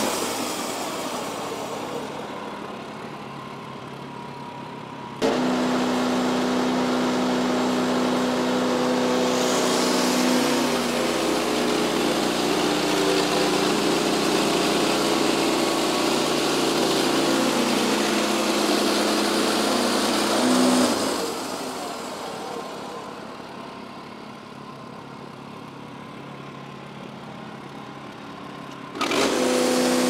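Wood-Mizer LX55 band sawmill running loudly, its engine and band blade going. Twice the sound dies away over a few seconds to a quieter idle. It comes back suddenly at full level about five seconds in and again near the end.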